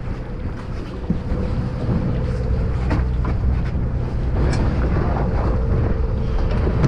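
A boat's engine running steadily, a low rumble with a constant hum, with wind buffeting the microphone. A few light knocks from handling on deck.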